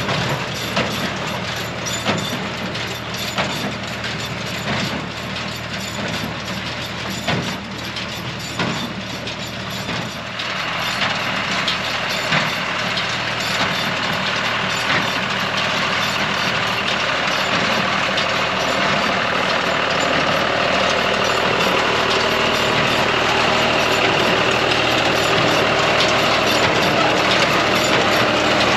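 A John Deere tractor runs steadily while it drives a John Deere 24T square baler, whose mechanism knocks again and again. About ten seconds in, the sound fills out and grows a little louder, then holds steady.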